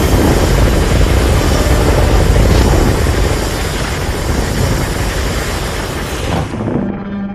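Godzilla atomic breath sound effect: a loud, dense hissing blast over a heavy rumble. It slowly weakens and dies away near the end.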